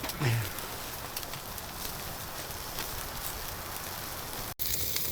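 Meat sizzling on a grill over a charcoal fire: a steady hiss with small crackles. It breaks off abruptly near the end.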